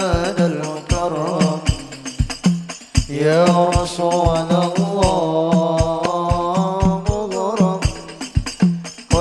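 Sholawat devotional singing: a voice holding long, ornamented, wavering notes over hadrah frame drums and tambourine jingles keeping a steady beat. The singing breaks off briefly about three seconds in and then resumes.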